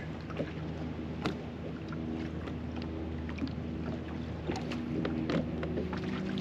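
Bow-mounted electric trolling motor on a bass boat humming steadily, cutting out and coming back a few times, with a few faint clicks over it.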